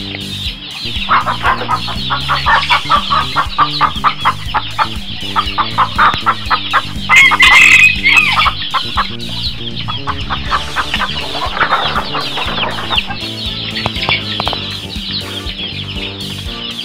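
A flock of half-grown chickens peeping and clucking, with a fast run of repeated clucks in the first few seconds and one loud call about seven seconds in. Background music plays underneath.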